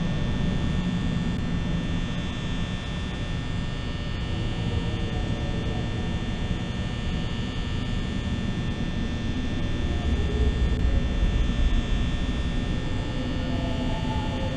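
A steady low hum and rumble with a faint, high, steady electrical whine over it. The rumble swells for a couple of seconds about ten seconds in.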